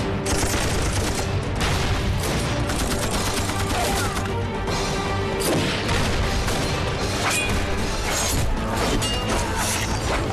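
Battle-scene sound effects of dense, rapid gunfire and explosions, with music playing underneath.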